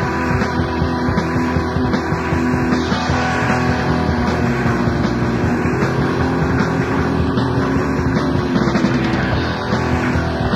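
Boston hardcore punk band playing a song from a 1990 demo tape recording, with electric guitar and drums driving steadily throughout.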